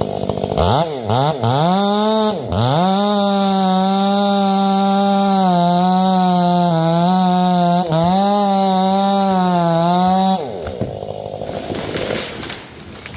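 Ported Stihl 500i two-stroke chainsaw blipped a few times, then held at full throttle cutting into a Douglas fir trunk, its pitch sagging slightly under load. The engine drops off about ten seconds in.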